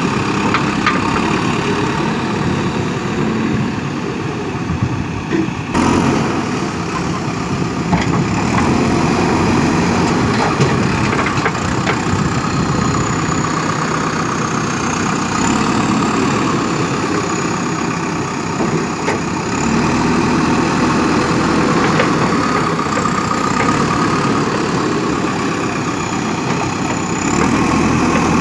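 JCB 3DX backhoe loader's diesel engine running steadily at close range.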